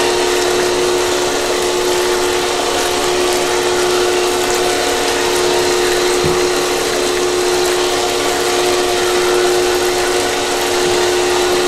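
Automatic spiral gold panning machine running: a steady electric hum from its water pump and motor under the even hiss and splash of water spraying from the spray bar onto the spiral pan.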